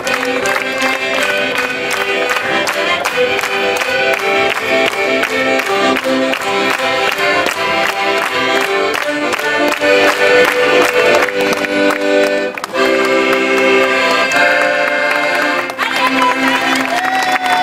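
Piano accordion playing a rhythmic tune with a steady beat of short chords; about two-thirds through it holds long chords for a few seconds before the beat returns.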